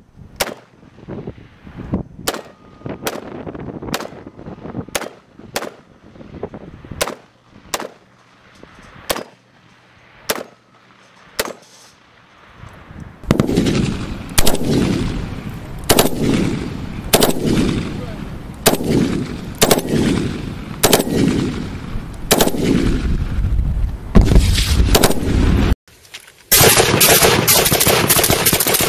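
AKS-74U 5.45x39 carbines firing: first about a dozen single shots, each under a second apart; then, about 13 seconds in, louder shots each followed by a long echoing tail; near the end, rapid full-auto fire from a suppressed AKS-74U.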